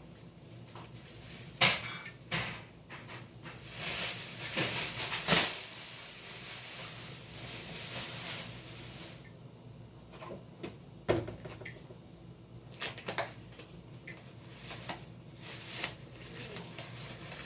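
Handling of thin plastic trash bags: rustling with scattered knocks and clicks, busiest about four to five seconds in, then quieter intermittent handling.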